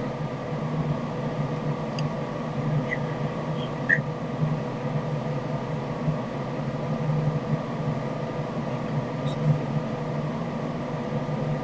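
Steady hum inside a car's cabin as it sits idling, unchanging throughout.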